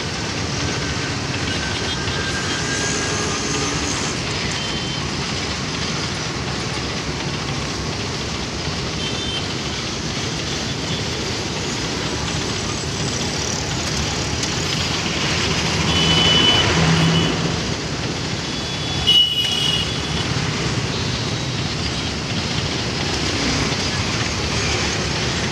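Steady rumble of a goods train of loaded coal wagons rolling past, mixed with road traffic. About two-thirds of the way through a brief high tone sounds over it, and a little later a single sharp knock is the loudest moment.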